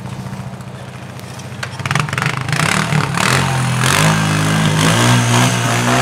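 Snow-plowing ATV engine running and revving up about two seconds in, with a plow-equipped pickup truck's engine close by.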